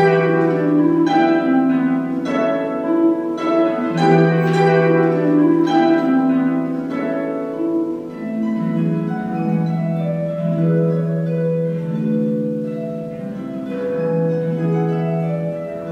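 Concert harp played solo: plucked notes and chords ringing over a sustained low bass note. The plucking is strongest in the first half and grows softer from about eight seconds in.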